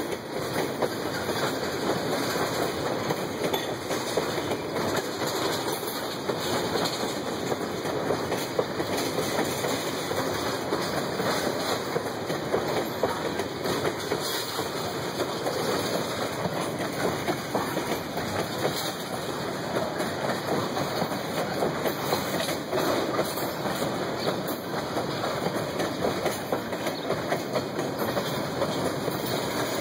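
Tank cars of a freight train rolling past, steel wheels clicking and rumbling steadily over the rails.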